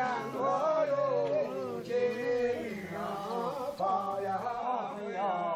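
A man's voice chanting in a sung, drawn-out way, holding some notes: a Taoist ritual chant for a healing rite.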